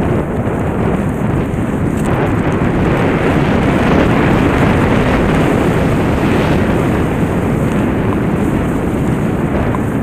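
Wind rushing over a helmet-mounted camera's microphone while skiing downhill, with skis running over snow; it grows a little louder about two seconds in as the skier picks up speed on the groomed slope.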